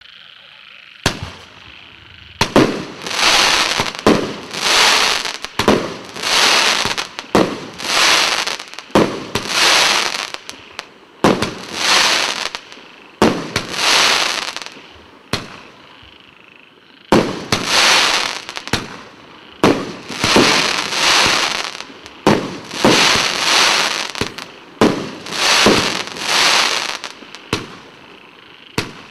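A 25-shot fireworks cake (battery) firing its shots in quick succession, about one a second. Each shot is a sharp report followed by about a second of hiss as the shell bursts into stars. The firing starts about a second in and pauses briefly near the middle.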